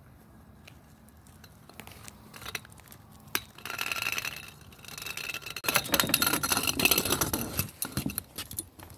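A folding tripod carried in a dog's mouth clinking, rattling and scraping against the gangway and dock decking. It is faint and sparse at first, then turns into dense clatter about two-thirds of the way through.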